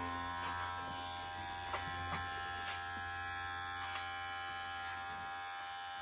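Electric hair clippers buzzing steadily as they trim hair at the neck and around the ear, with a few faint ticks.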